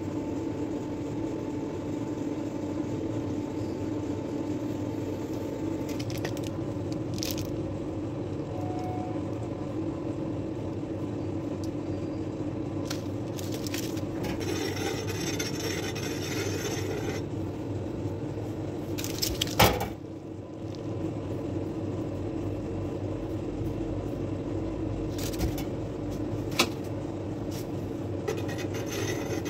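A toothed plastic cake comb scraper rasps against cream frosting and a metal cake turntable as the cake is turned, with scattered clicks and one sharp knock about twenty seconds in. A steady machine hum runs underneath throughout.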